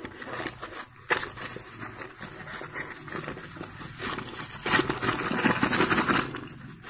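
Thin cardboard packets of slate pencils being handled and opened by hand: irregular rustling and scraping of card, with a sharp crackle about a second in and a louder stretch of rustling near the end.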